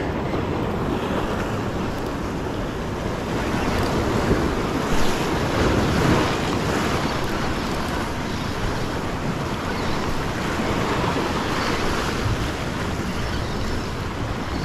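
Ocean surf washing against a rock ledge, with wind buffeting the microphone; the wash swells louder a few times.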